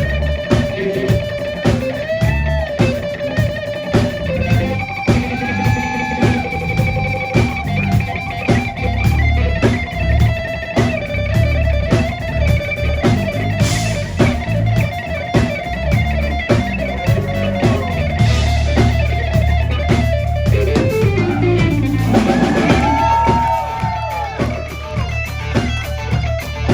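Live blues-rock band playing: an electric guitar solo of long, bent notes over bass guitar and a steady drum beat, with a long downward glide in pitch about three quarters of the way through.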